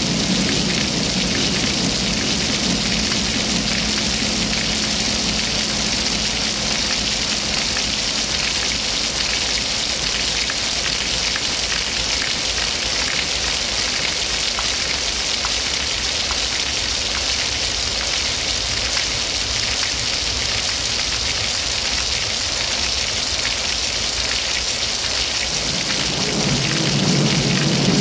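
A steady, fairly loud hiss like falling rain. A low hum under it fades out in the first couple of seconds and comes back near the end.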